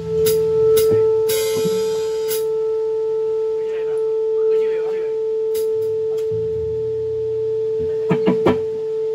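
A steady, unbroken single tone rings through the stage amplification, with low held notes underneath that change about six seconds in. Scattered sharp knocks and clicks from stage gear are heard, with a quick cluster of them near the end.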